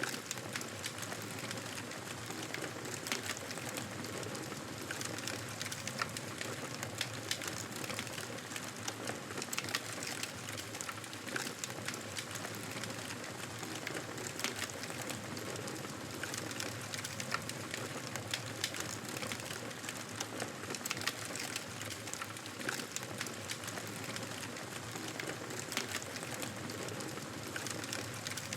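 Wood fire crackling steadily: a soft hiss of burning with frequent small sharp snaps and pops.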